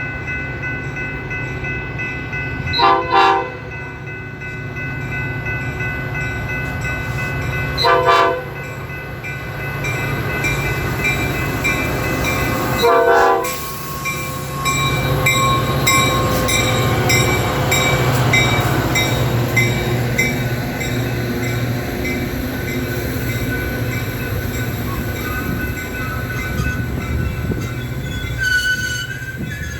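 Metra F40PH diesel locomotive sounding its horn in three short, loud blasts about five seconds apart. The train then passes close by, with the diesel engine running and a steady low rumble.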